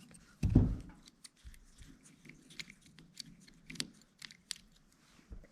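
A knock about half a second in, then light clicks and scrapes of small metal parts and a tool being handled while the idle adjustment screw is backed out of a small-engine carburetor.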